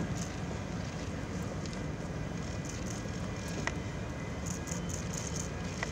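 Outdoor ambience: a steady low rumble and hiss, with a few faint sharp clicks.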